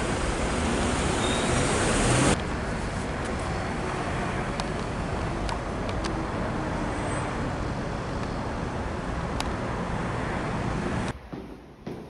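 Steady rushing outdoor background noise on a secondhand camcorder's built-in microphone, changing abruptly at a cut about two seconds in, with a few faint clicks. It drops away at another cut near the end.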